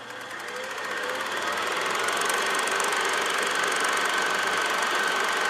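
Film projector running with a rapid, steady mechanical clatter, swelling over the first two seconds.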